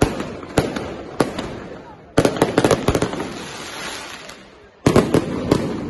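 Aerial firework shells bursting in a pyrotechnic display: three single bangs about half a second apart, then a rapid salvo of bangs about two seconds in and another short salvo near the end, each followed by an echoing tail.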